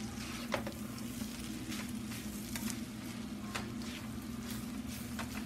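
Rice noodles with vegetables sizzling in a wok as they are tossed and stirred, with scattered clicks and scrapes of the utensil against the pan over a steady low hum.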